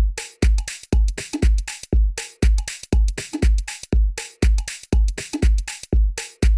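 Drum machine loop with a kick drum about twice a second and hi-hats and percussion between the kicks, played through a software modulation effect.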